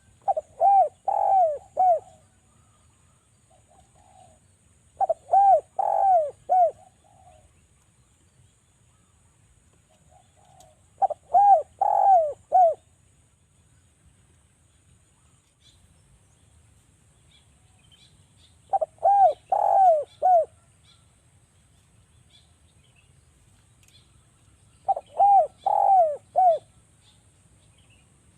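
Spotted dove (derkuku) cooing: five phrases of four or five short coos, each note dipping in pitch, repeated about every six seconds.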